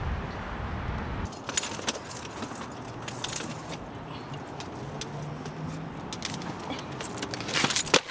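Keys jangling with small metallic clicks inside a car, with wind rumbling on the microphone for the first second or so. A louder clatter of clicks comes near the end.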